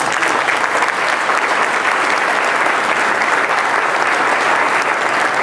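Audience applause: a steady round of clapping from a seated crowd in a large hall.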